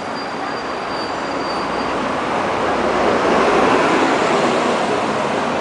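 City street traffic: cars passing close by through an intersection, with tyre and engine noise swelling to a peak around the middle and easing off toward the end.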